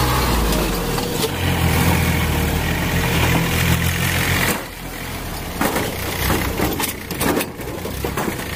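Tractor's diesel engine running with a steady low note; about four and a half seconds in the engine note drops away and a run of knocks and rattles takes over.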